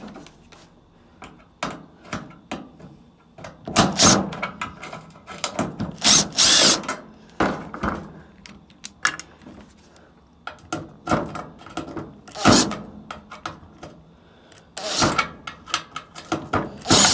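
Power drill-driver with a Phillips bit backing screws out of a dryer cabinet, running in about six short bursts, with small clicks and knocks of the screws and panel between them.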